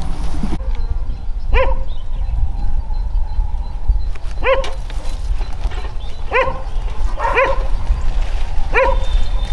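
A dog barking about five times, single barks a second or two apart, over a steady low rumble.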